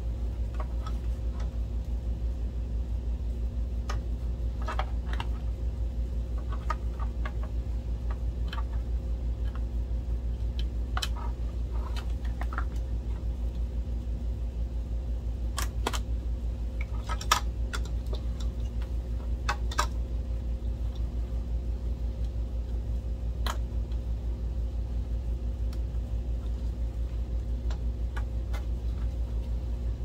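Scattered small clicks and taps of plastic parts, wires and connectors being handled inside an opened DLP projector, over a steady low hum.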